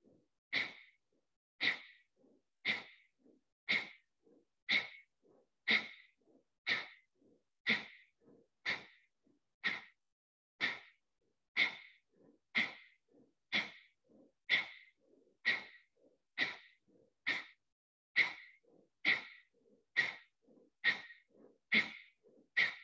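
Kapalabhati breathing: a steady series of short, forceful exhalations through the nose, about one a second, each a sharp puff that fades quickly, with faint passive inhales between.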